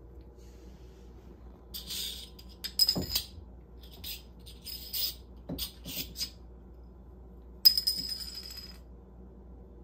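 A bottle cap batted by a cat, skittering and clicking across a tile floor in a string of light clatters. The loudest clatter comes near the end and rings on for about a second, like the cap spinning down on the tiles.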